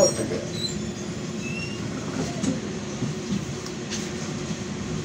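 Interior of a BKM 60102 low-floor tram in motion: a steady running hum with a constant low tone, and a few short high squeaks in the first two seconds, typical of tram wheels on rail.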